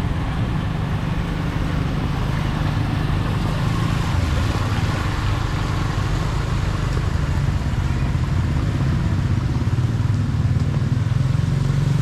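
Motor vehicle engine running steadily, a continuous low drone with no break.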